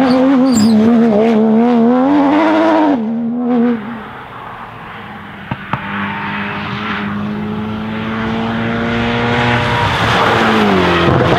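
A Porsche 991 rally car's flat-six engine at high revs, its pitch wavering as it passes close, for about three seconds. Then a second rally car, an Alpine A110, comes in, its engine note quieter and climbing slowly, with two sharp cracks just before halfway. Near the end the note drops in pitch.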